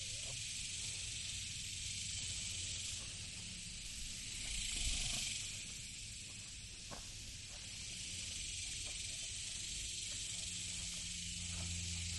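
A steady high hiss of outdoor background noise, with a low rumble underneath; it swells briefly about five seconds in, and a few faint knocks come through.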